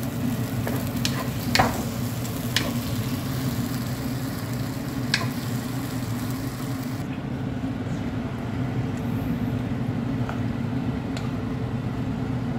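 Onions and tomato frying in sauce in a wok, sizzling as a wooden spoon stirs them, with a few sharp taps of the spoon against the pan. A steady low hum runs underneath, and the sizzle thins out about seven seconds in.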